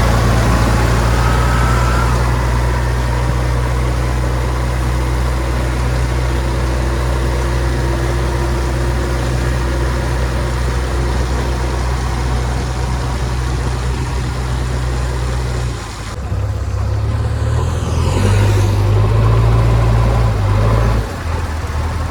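Heavy diesel machinery engine running steadily. Its note changes about two-thirds of the way through, grows louder for a few seconds, then drops back near the end.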